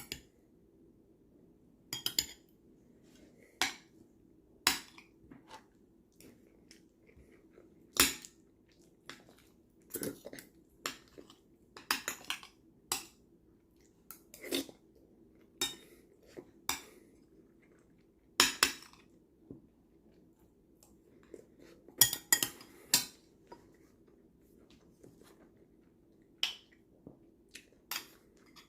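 Kitchen utensils clinking and knocking against cookware in scattered, irregular sharp taps, some a few seconds apart and some in quick clusters, over a faint steady low hum.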